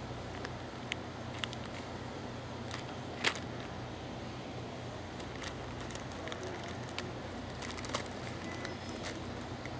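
Supermarket room tone: a steady low hum with scattered small clicks and taps, the sharpest about three seconds in.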